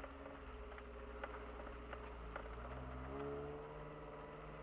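Kia Sportage engine running at low revs, heard from inside the cabin; about three seconds in its note rises as it accelerates. Scattered short, sharp clicks and knocks.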